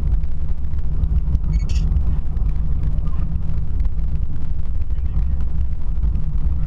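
Steady low rumble of a vehicle on the move, with a brief high squeak about two seconds in.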